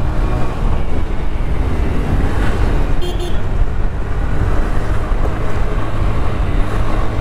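Honda Dio scooter's single-cylinder four-stroke engine running steadily while riding, mixed with a steady low rumble of wind on the microphone.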